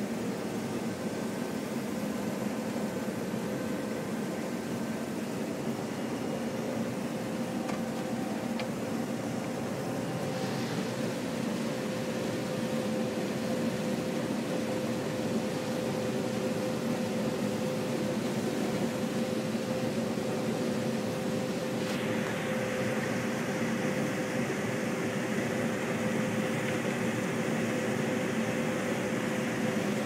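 Combine harvester running steadily while harvesting corn, heard from inside the cab as a constant machine drone with a steady hum. About two-thirds of the way through, a rushing hiss grows louder.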